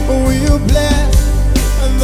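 Live gospel worship band playing: keyboard chords over bass guitar and drum kit, continuous and steady in level.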